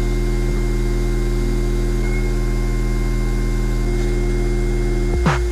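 A steady, loud low electronic drone made of several held low tones, with no variation. Near the end, a sharp drum hit starts a beat.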